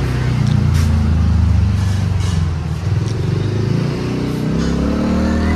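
A motor vehicle's engine running close by: a steady low hum that starts to rise in pitch near the end as it speeds up.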